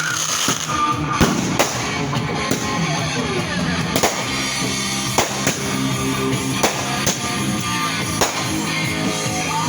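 Music playing, with about eight sharp firework bangs going off at irregular intervals over it.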